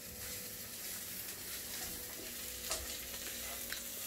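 Boiled asparagus, onion and garlic sautéing in olive oil in a nonstick frying pan on a very low flame: a steady gentle sizzle as the water cooks off, with a wooden spatula stirring and clicking against the pan a few times.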